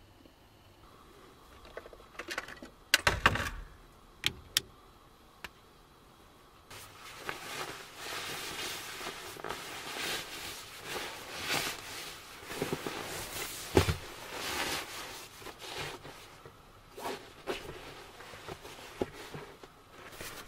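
Sleeping bag fabric rustling and swishing as the bag is folded, compressed and stuffed into its stuff sack. Before that, about three to four seconds in, a few sharp knocks and clicks are heard.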